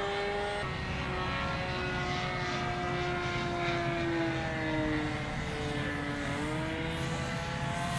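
Radio-controlled model airplane in flight, the steady drone of its motor and propeller. The pitch slides slowly lower through the middle, then climbs back up about six and a half seconds in.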